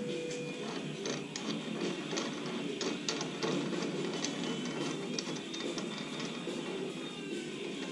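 An adjustable metal angle clamp being handled and set on square steel tubing on a steel table: a run of small, irregular metal clicks and rattles.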